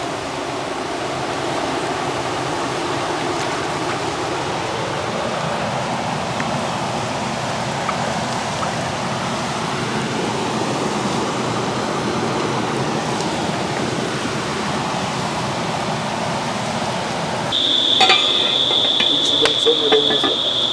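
Steady rush of water, even and unbroken, from the river and rain. Near the end it cuts abruptly to a high, steady insect drone with scattered clicks and knocks.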